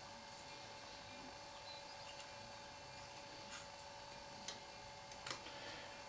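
A few faint clicks of a hand tool on the rocker-arm valve adjuster of a Simson AWO 425 T four-stroke engine as the valve clearance is set, the clearest about five seconds in, over a faint steady hum.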